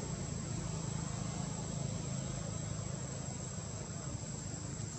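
Steady outdoor background: a constant high-pitched insect drone over a low rumble, with no calls from the monkeys.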